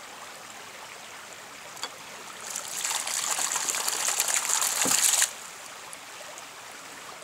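Ram pump's weighted waste valve gushing water for about three seconds, then cutting off suddenly as the valve slams shut: one water-hammer pumping stroke. A steady trickle of running water continues underneath.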